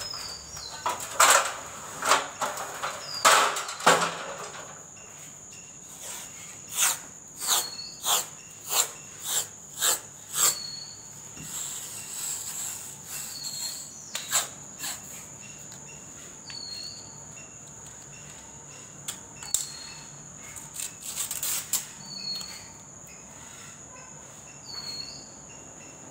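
Masking tape being pulled off the roll and pressed along a wooden frame: a dense run of short, sharp rasps over the first four seconds, then a regular series of about two a second, then only a few. A steady high cricket trill runs underneath.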